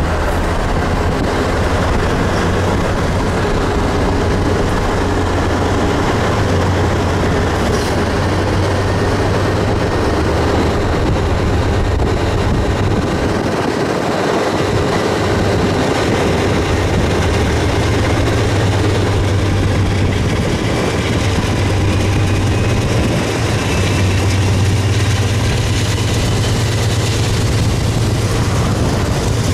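Norfolk Southern GE Dash 8 and Dash 9 diesel-electric locomotives hauling a train, a steady low engine drone over continuous rolling rail noise.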